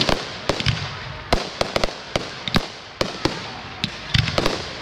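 Fireworks display: aerial shells bursting overhead in an irregular string of sharp bangs, sometimes several within a second.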